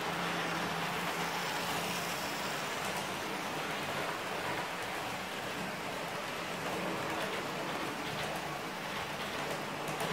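Lima HST model train running past on model railway track: a steady rattling hiss of wheels on the rails and the running gear.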